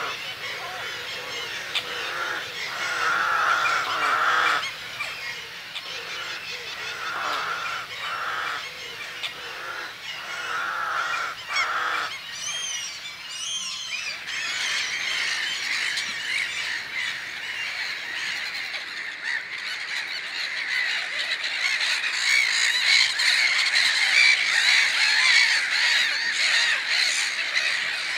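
Birds calling: a series of separate calls, each lasting about a second, through the first half, then from about halfway a dense, continuous chorus of many overlapping higher-pitched calls that grows a little louder toward the end.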